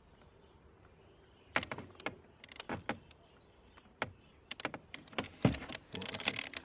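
Irregular clicks and knocks from hands working on a car door's inner handle mechanism with the door panel off. They begin about a second and a half in, the loudest knock comes around five and a half seconds, and the clicking comes faster near the end.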